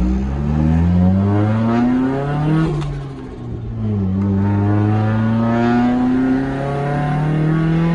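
Nissan 240SX's turbocharged CA18DET four-cylinder engine accelerating hard under boost, its pitch climbing steadily; about three seconds in the pitch and level fall briefly, then the engine climbs again in a second long pull. This is a boost run testing a newly fitted manual boost controller, which is still reaching about 15 psi.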